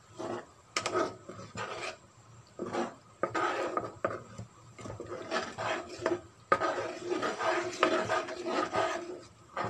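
Spatula scraping and stirring along the bottom of a non-stick pan of thickening urad dal and coconut milk porridge, in repeated irregular strokes.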